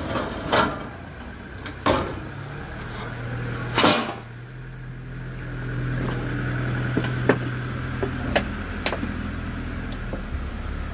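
Sharp knocks and the brushing of leaves as someone moves through dense shrubs beside corrugated metal sheets, the loudest knock about four seconds in. A steady low hum comes in during the first few seconds and fades near the end.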